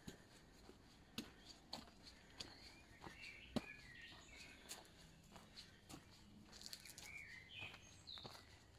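Quiet footsteps crunching along a dirt and gravel forest path, with short bird chirps a few times, mostly in the second half.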